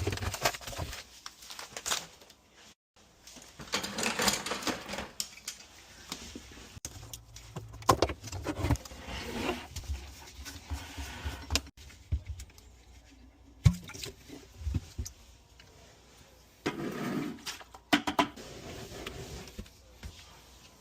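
Hands working with tools and parts: irregular clicks, knocks and bursts of rustling and scraping, with short quiet gaps between them.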